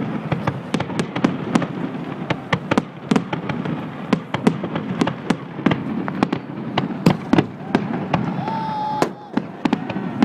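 Fireworks going off in a rapid, irregular barrage of sharp pops and bangs, several a second, over a constant crackle. A short whistling tone sounds near the end.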